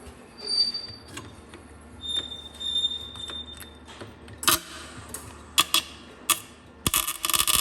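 Electric arc welding on a VAZ rear axle differential, welding the gears solid to lock it: irregular crackling and popping of the arc. Two brief faint high whines come in the first half, and the crackling grows louder and denser in the second half, heaviest near the end.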